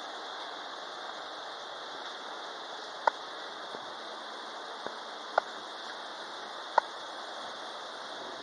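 Steady outdoor street ambience heard while walking along a city sidewalk, with three short sharp clicks about three, five and a half and seven seconds in.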